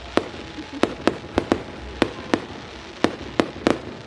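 Display fireworks exploding, about ten sharp bangs in quick, irregular succession, some of them in close pairs.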